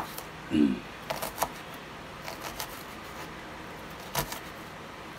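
A kitchen knife dicing red onion on a wooden cutting board: scattered sharp taps of the blade on the board, some in quick little clusters, with one heavier knock about four seconds in. A short voiced sound comes about half a second in.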